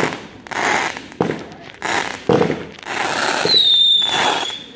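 Fireworks going off in quick succession: sharp bangs about a second apart, each followed by crackling. Near the end comes a high whistle that sinks slightly in pitch.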